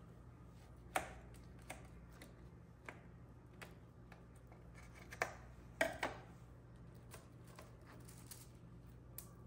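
Knife cutting through a toasted sandwich: a scattering of sharp crunches and clicks as the blade breaks through the toasted crust, the loudest cluster about halfway through.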